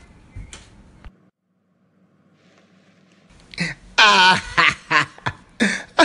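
Speech only: a brief gap of near silence, then a man's voice starts talking about halfway through.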